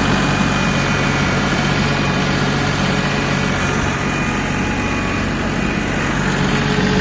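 A vehicle engine running steadily at an even speed, a constant low hum with no change in pitch.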